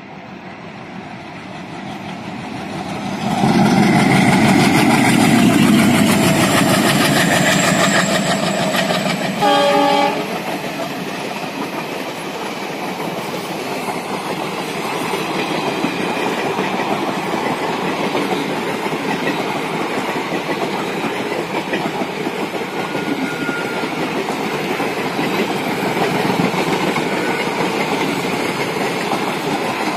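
Diesel locomotive approaching and passing, its engine loudest a few seconds in, with one short horn blast about ten seconds in. Passenger coaches then roll by with a steady clickety-clack of wheels over the rail joints.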